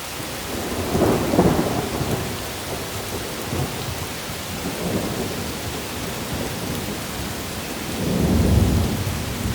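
Steady heavy rain falling during a thunderstorm, with thunder rumbling twice: about a second in and again near the end.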